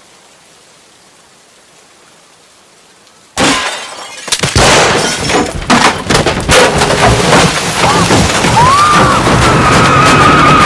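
Low hiss for about three seconds, then a sudden heavy downpour of frogs: dense, overlapping thuds and splats pelting glass and a car body. A high squeal rises near the end.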